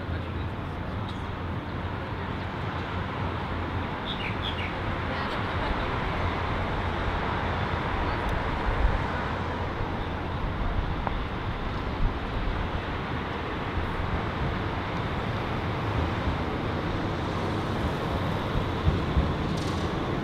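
Steady city street traffic, cars and taxis passing on a busy road. A bird chirps briefly about four seconds in, and a tram draws close near the end.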